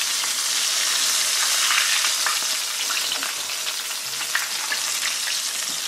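Battered slices deep-frying in hot peanut oil, about 350 °F, in a cast-iron skillet: a steady sizzle with scattered small crackles.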